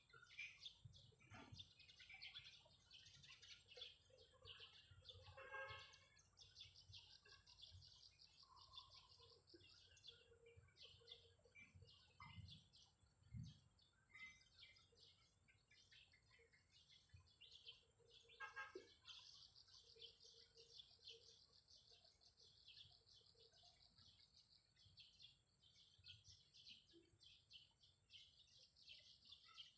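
Faint birds chirping, with quick repeated chirps and calls through the whole stretch and a few soft low knocks in the middle.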